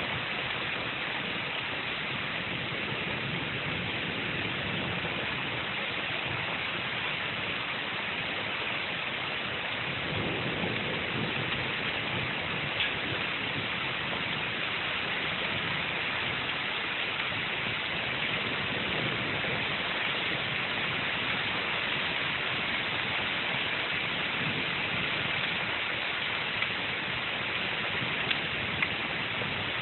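Steady heavy rain during a thunderstorm, an even hiss throughout, with a few sharp ticks of drops standing out.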